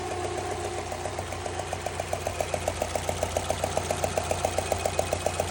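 Subaru 2.0-litre petrol flat-four engine idling with a quick, even ticking knock, clearer from about two seconds in. The owner places the knock at the fourth cylinder, and it persists after a new timing belt kit and idler pulley.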